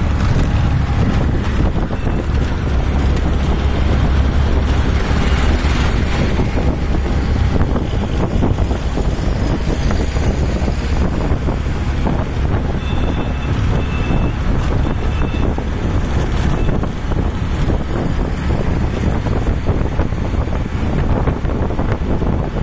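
Riding in an open-sided auto rickshaw at road speed: the rickshaw's small engine runs with a steady low rumble under wind buffeting the microphone.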